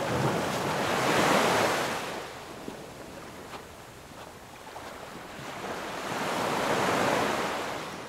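Ocean surf washing onto a sandy beach: a steady rush of water that swells about a second in and again near the end, then begins to fade.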